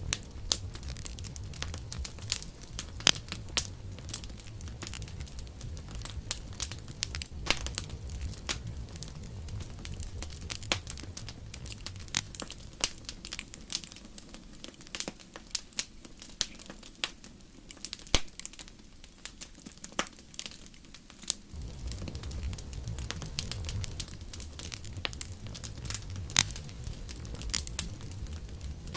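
Campfire crackling, with irregular sharp pops over a low rumble. The rumble drops away for several seconds about halfway through, then comes back.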